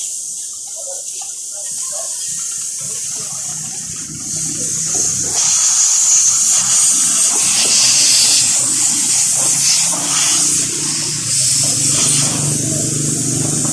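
Water spraying at a car wash, a steady hiss, with a low steady machine hum joining about three seconds in.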